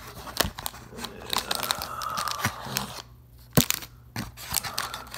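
Trading-card box and foil card packs being handled: crinkling and rustling with many sharp clicks, and one louder snap about three and a half seconds in.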